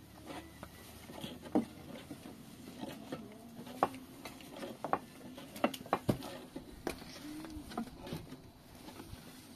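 Irregular light taps and clicks with a few sharper knocks, unevenly spaced.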